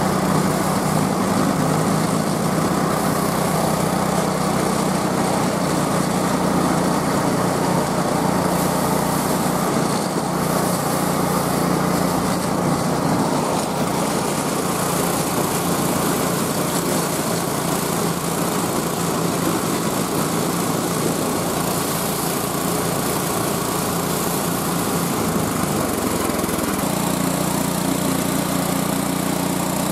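Small gas engine of a homemade motorized dog sled running steadily, its note shifting to a different speed near the end.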